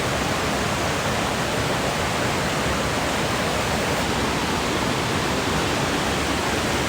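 Steady rush of a creek waterfall, an even wash of noise without change.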